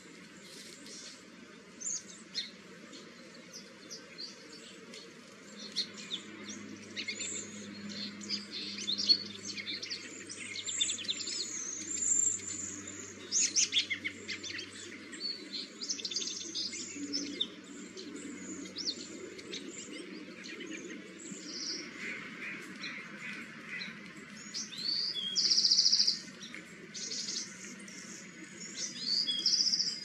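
Small songbirds chirping and calling, with many short high-pitched notes overlapping, and one louder buzzy call about 25 seconds in.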